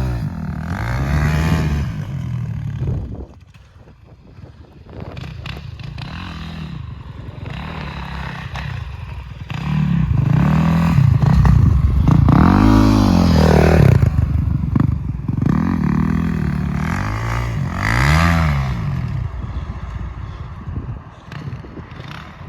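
A 450cc off-road machine's engine revving up and falling back again and again as it is ridden, with the loudest, highest-revving stretch about halfway through and a quieter stretch just after the start.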